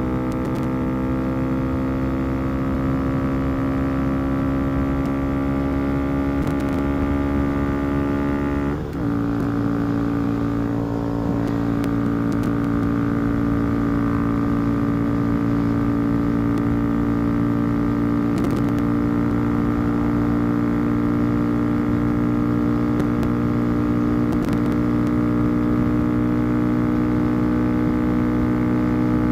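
2022 Honda Grom's single-cylinder engine with a Yoshimura RS9T full exhaust, held at full throttle on a top-speed run, its pitch slowly climbing as speed builds. About nine seconds in there is a brief break in the sound, like a quick upshift, after which the steady climb resumes.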